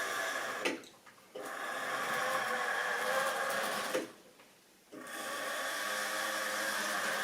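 Small electric motor of a model railway locomotive running with a steady whirr as the train rolls along the track. The sound cuts out abruptly twice, for under a second each time, with a click as each cutout begins.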